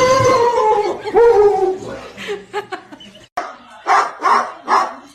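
A dog giving a long drawn-out howl, then a shorter one falling in pitch, followed by a run of short barks.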